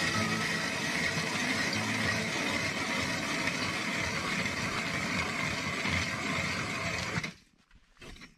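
Ice auger boring through lake ice, a steady grinding crunch of the spiral blades cutting, which stops abruptly about seven seconds in as it breaks through the roughly 8 to 9 inches of ice.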